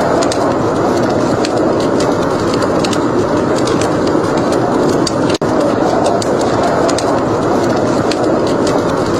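Wood fire crackling: irregular sharp pops and snaps over a steady rushing roar. The sound cuts out for an instant about five seconds in.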